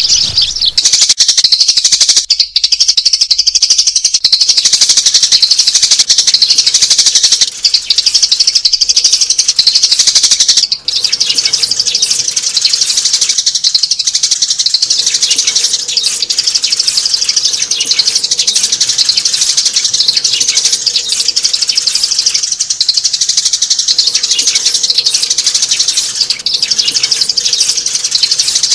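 Adult sparrows chirping rapidly and without a break: a loud, dense stream of high chirps. It is a recorded sparrow call played as a lure to draw adult birds into a trap.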